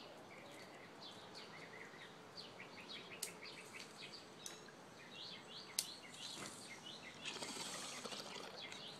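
Glass water bong bubbling during a long hit near the end, after a few sharp lighter clicks, with small birds chirping over and over in the background.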